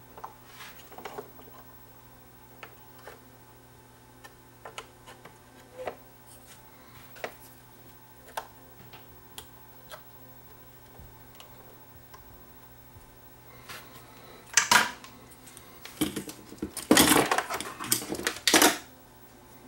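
Light clicks and taps of a soldering iron and hands working on a small circuit board, then, near the end, a louder clatter of tools being handled and put down.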